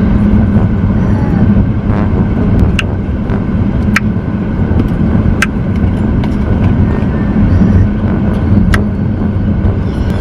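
Steady low rumble of a car heard from inside the cabin, with a few short, sharp clicks scattered through it.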